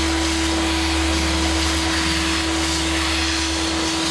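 Vacuum cleaner hose sucking loose sawdust off a freshly carved wooden relief: a steady motor tone under the rush of air and chips through the nozzle.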